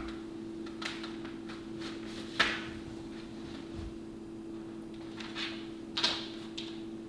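Picture frame knocking and scraping against a wall as it is positioned and hung, with sharp knocks about two and a half seconds in and about six seconds in and several lighter clicks. A steady low hum runs underneath.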